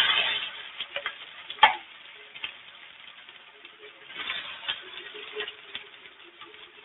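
Marinated chicken pieces frying in a shallow layer of oil in a nonstick pan: sizzling with scattered crackles. A burst of sizzle at the start as another piece goes into the hot oil, a sharp click about a second and a half in, and a metal spatula scraping as pieces are pushed around about four seconds in.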